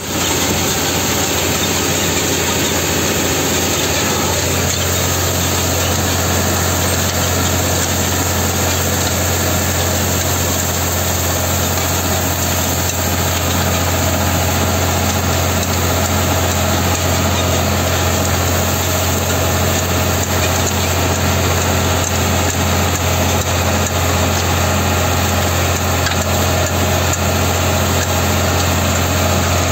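Massey Ferguson 3080 tractor's diesel engine running steadily under load, pulling a disc harrow through stubble, heard from the driver's seat.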